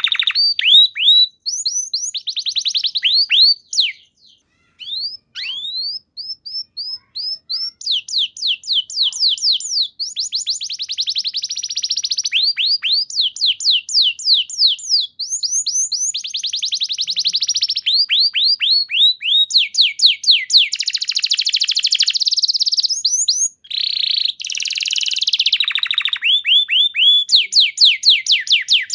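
Domestic canary singing a long, high-pitched song of rapid repeated down-slurred notes and trills. The phrases change from one run of notes to the next, with a short pause about four seconds in.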